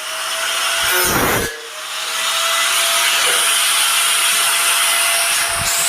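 A 750-watt Ingco angle grinder running with a steady high whine, biting into a workpiece briefly about a second in with a harsher, deeper grinding noise, then spinning on.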